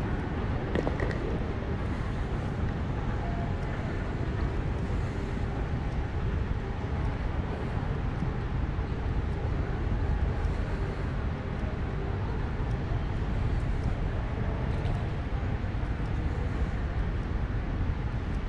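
Steady low rumble of a vehicle heard from inside, even throughout with no distinct events.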